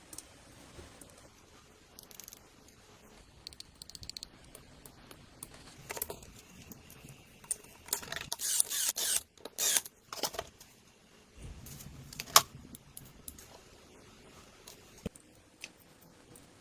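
Small metal parts and tools handled and worked: scattered clicks and clinks, a busy stretch of scraping and clicking a little past the middle, and one sharp click shortly after.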